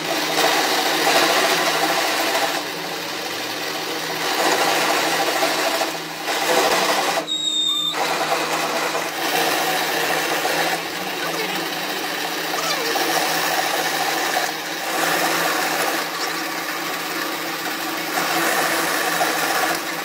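Metal lathe running, its motor humming steadily while a threading tool cuts a screw thread into a steel bar. The cutting noise swells and eases every few seconds, with a brief break about a third of the way in.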